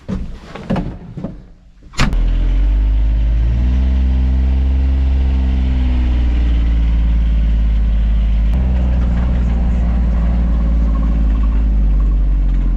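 John Deere Gator XUV 855D utility vehicle's three-cylinder diesel engine running loud and steady as it drives off, heard from the driver's seat, starting abruptly about two seconds in after a few quiet knocks, its note lifting a little a few seconds later and then settling.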